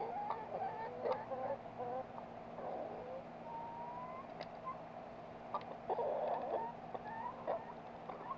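Backyard chickens clucking and giving short calls, busiest near the start and again about six seconds in, with one longer drawn-out call in the middle. A steady low hum sits beneath.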